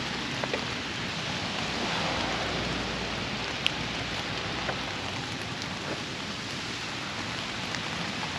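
Heavy rain falling steadily, a constant hiss with a few light drop taps.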